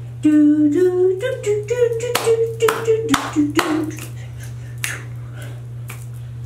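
A woman's voice singing a wordless tune in held notes that step upward in pitch, with finger snaps. The voice stops a little past halfway, and the snaps go on alone.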